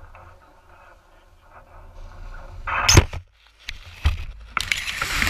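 Microphone handling noise: a sharp knock about three seconds in, then scraping and rustling as the camera rubs against dry grass and paraglider wing lines on the ground.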